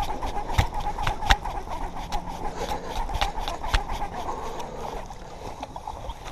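Baitcasting reel being cranked fast close to the microphone, with a steady whir from its gears and irregular sharp clicks over it, as a hooked bass is reeled in. The whir eases off about five seconds in.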